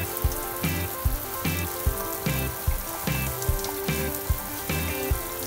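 Background music with a steady beat, about one low thump every three-quarters of a second, over a steady hiss of running water.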